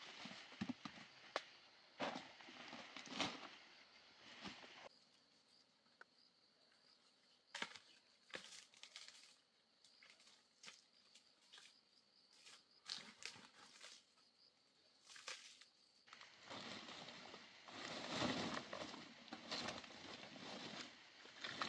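Faint rustling of leaves and undergrowth with scattered light knocks and snaps as cut banana stems and leaves are handled. The rustling becomes denser and steadier near the end.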